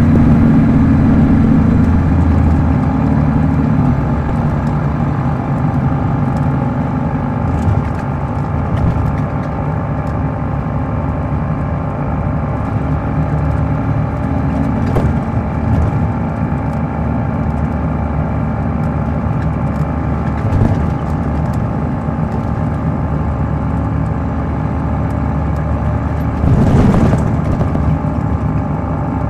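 A 2006 MCI D4500CL coach's Caterpillar C13 ACERT inline-six diesel running under way. It is louder for the first few seconds, then settles into a steady drone with scattered light rattles. A brief rush of noise comes about 27 seconds in.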